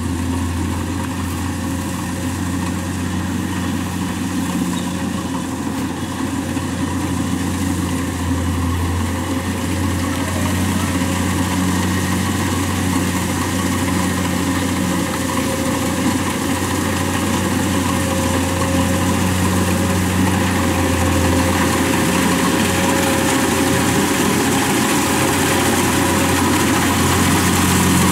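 Kubota rice combine harvester's diesel engine running steadily as the machine harvests, with a low, even drone that grows gradually louder.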